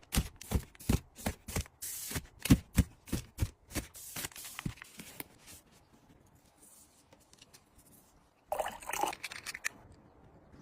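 A quick run of sharp clicks and taps, about three a second, from items being handled, then quiet, then a brief rustle near the end.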